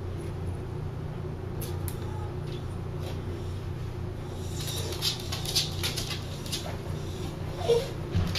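Small dog making quick clicking and snuffling sounds, starting about halfway in and growing busier, over a steady low hum.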